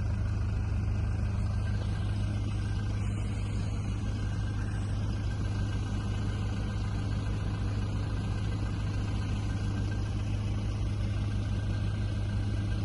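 A vehicle engine running steadily at a constant low pitch, with no revving.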